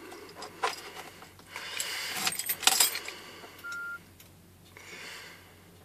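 A bunch of keys jangling and clicking as the key goes into the ignition of a Scania truck and is turned to switch the ignition on, the loudest clatter about two and a half seconds in. The dashboard then gives one short electronic beep as the instrument cluster powers up, before the engine is started.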